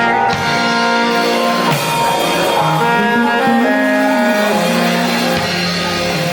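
Live band playing an instrumental passage, with long held melody notes over a moving bass line.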